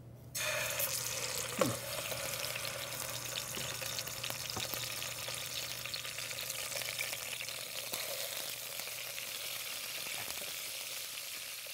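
Raw rabbit pieces sizzling as they sear in a hot saucepan, the steady sizzle starting suddenly as the meat goes in. A few light clinks of metal tongs sound over it, one about a second and a half in.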